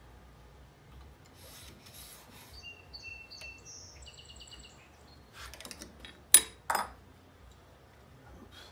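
Lie-Nielsen No. 62 low angle jack plane rubbing and scraping on a board edge, with two short, sharp scrapes of the plane across the wood a little past six seconds in as the loudest sounds. The plane's mouth is set too closed for a clean shaving.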